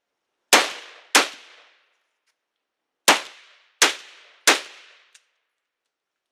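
IWI Ace Galil .308 rifle firing five single shots. The first two come in quick succession; after a pause of about two seconds come three more at a steady pace, each with a short ringing tail.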